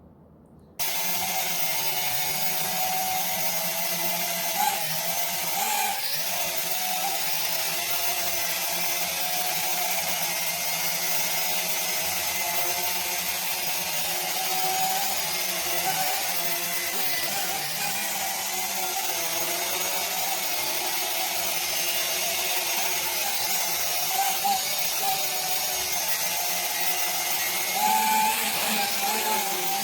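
Small quadcopter drone's propellers and motors buzzing steadily in flight, with a high whine that wavers slightly in pitch. It cuts in suddenly about a second in.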